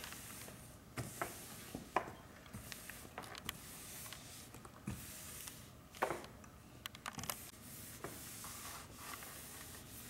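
Hand iron sliding over silicone paper laid on a rice-paper painting, a soft rubbing hiss, while dry-mounting it onto a silk scroll. Several light knocks and clicks at irregular moments.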